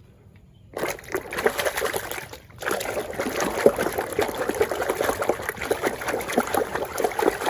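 Running water trickling and splashing over a plastic toy animal as it is washed clean of mud, starting about a second in, with a brief break near the middle.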